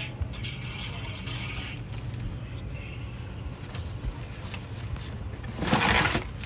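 Furnace running with a steady low hum, with a short loud rushing noise about six seconds in.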